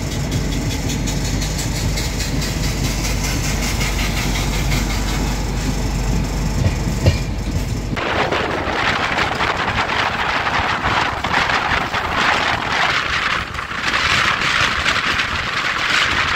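Running noise of an LHB passenger coach on an Indian Railways express in motion: a steady rumble of wheels on rails. About eight seconds in it changes abruptly to a brighter, hissing rush.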